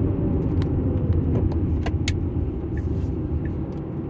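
Car driving on the road: a steady low rumble of engine, road and tyre noise, with scattered light ticks and rattles.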